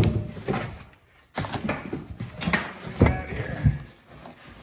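Plastic packaging wrap rustling and crinkling as a wrapped wheel part is pulled out of a cardboard box, with a few knocks against the box. The sound pauses briefly about a second in.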